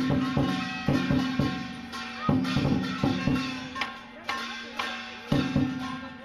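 Lion dance percussion: Chinese drum strikes together with clashing cymbals and gong, in an uneven rhythm of loud hits each followed by ringing.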